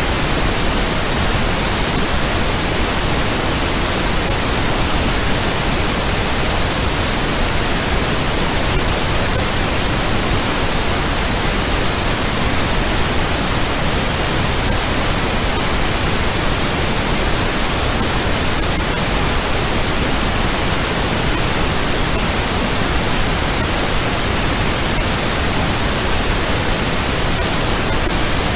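Steady, unchanging noise track, an even hiss spread across all pitches with no tones or events in it.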